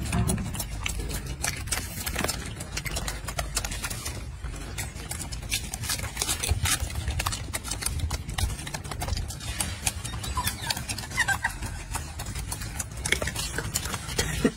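Irregular crunching clicks of a golden snub-nosed monkey chewing food at close range, over a steady low rumble.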